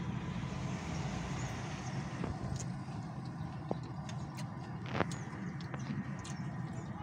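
Steady low hum inside a car's cabin, with scattered light clicks and a slightly louder tap about five seconds in.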